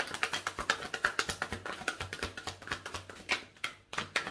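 Tarot deck being shuffled by hand: a quick, steady run of papery card flicks and taps, several a second, thinning to a few separate louder slaps near the end.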